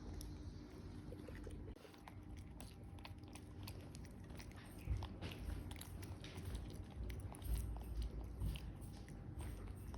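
Close-up chewing and biting by a pet monkey eating, with many small crunchy clicks and a couple of low bumps.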